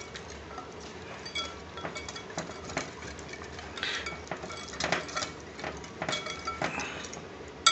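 A metal utensil stirring a thick spice-and-yogurt marinade in a glass bowl. It knocks and clinks against the glass in an irregular rhythm, and each clink rings briefly.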